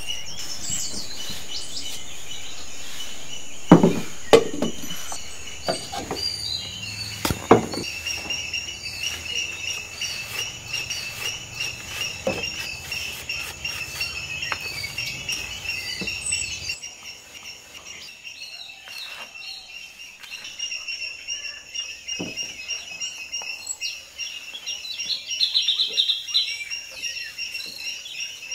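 Steady chirring of insects with bird calls, a tropical garden chorus, broken by a few sharp knocks. A short rapid trill comes near the end.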